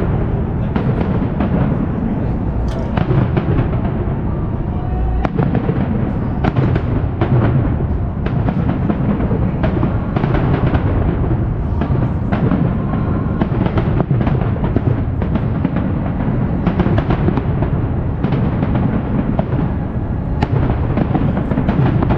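Large fireworks display: a dense, continuous barrage of bangs over a deep rumble.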